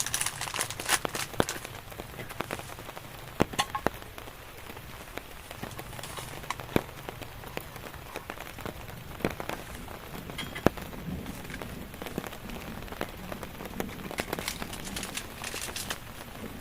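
Rain falling steadily, with many individual drops striking a nearby surface as sharp, irregular ticks.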